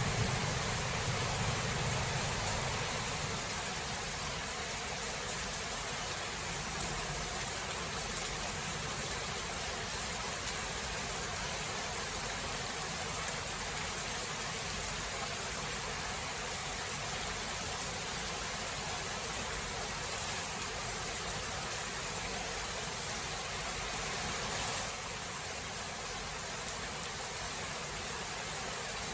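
Steady rain hiss of a thunderstorm, with the tail of a low thunder rumble dying away in the first two seconds. The rain drops slightly in level near the end.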